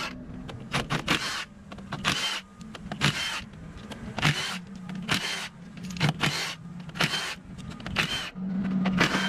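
Cordless impact wrench undoing the axle hub bolts on a forklift drive axle. It goes in short hammering bursts about once a second, with the motor whirring steadily between them, longest near the end.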